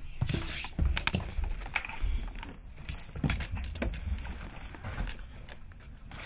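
A kitten's claws scrabbling and clicking on a wire CD rack and the door beside it, with irregular light clattering, busiest in the first second or so.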